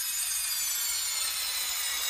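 Quadcopter drone's electric motors and propellers whining steadily, a cluster of high tones that drift slowly lower.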